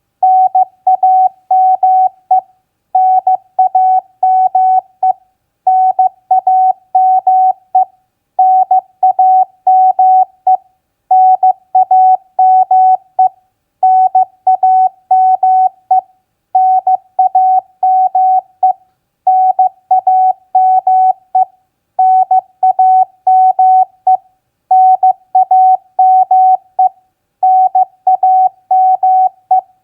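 Morse code (CW) at 15 words per minute: a single steady beep tone keyed on and off in dots and dashes, in groups of about two seconds with short pauses between words. It spells out common contact exchanges such as name, signal report and location.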